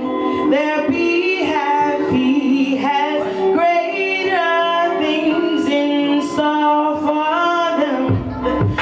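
A woman singing a melody with held, gliding notes over sustained chords from the accompaniment. Near the end a low bass line and beat come in.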